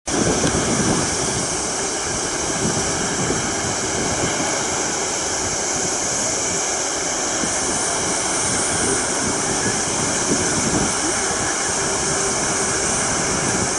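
Airbus A380-861's four Engine Alliance GP7270 turbofans running at low taxi power: a steady jet hum and hiss with a faint low tone.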